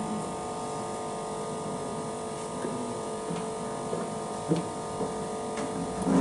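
Steady electrical hum of a switched-on pulse press flex bonding machine, with a few faint light clicks as small parts are handled under its press head.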